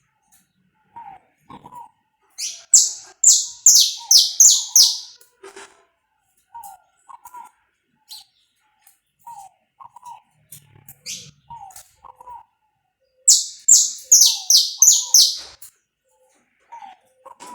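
Saffron finch (canário-da-terra) singing: two loud phrases of quick, high, down-sweeping notes, one a couple of seconds in and one near the end. Soft, low two-note calls repeat every second or two underneath.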